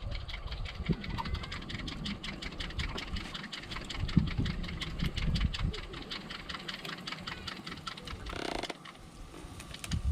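Wood campfire crackling, with many small sharp pops over a low rumble, and a short hiss about eight seconds in.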